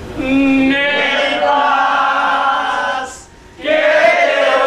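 Several men singing a Polish song together, holding long notes; they break off briefly about three seconds in and come back in.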